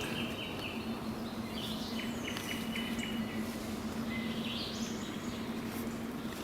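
Small birds singing in woodland: short phrases of quickly repeated high chirps and brief sliding notes, several times over, above a steady low hum.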